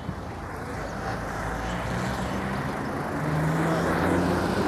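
Street traffic: a motor vehicle passing close by, its engine hum and road noise growing louder toward the end.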